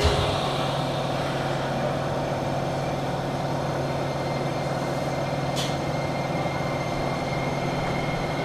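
Steady hum inside a Nagoya City Subway 6050-series car, with a thump right at the start and a sharp click about five and a half seconds in.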